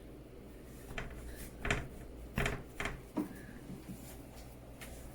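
A few short, light knocks and clicks, about five over two and a half seconds, from things being handled while play dough is being made.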